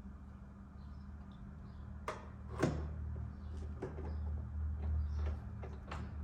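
Replacement side mirror being set onto the truck door: a few sharp clicks and knocks of plastic and metal, the loudest about two and a half seconds in, over a low rumble.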